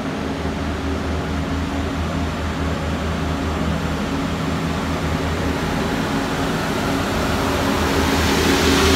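Class 175 diesel multiple unit running slowly alongside the platform, its underfloor diesel engines droning steadily. The sound grows louder towards the end, with a rising hiss as the front of the train comes by close.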